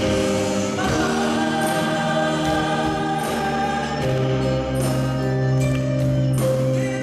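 Vocal ensemble singing long held chords in harmony over instrumental backing, with a deep bass note entering about four seconds in.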